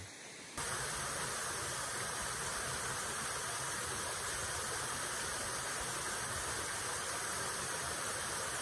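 Small waterfall pouring into a creek pool: a steady, even rush of water that starts abruptly about half a second in.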